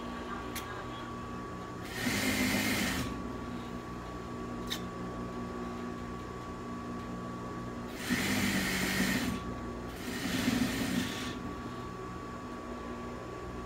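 Industrial sewing machine stitching in three short runs, about two seconds in, around eight seconds in and again around ten seconds in, over a steady hum.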